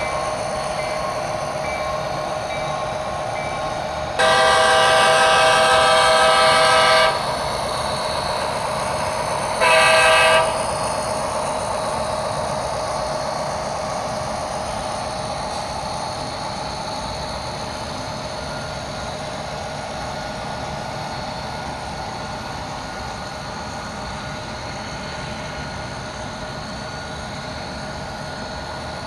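Sound-equipped HO-scale model diesel locomotive running steadily, with its chime horn blown in one long blast of about three seconds and then a short blast a couple of seconds later.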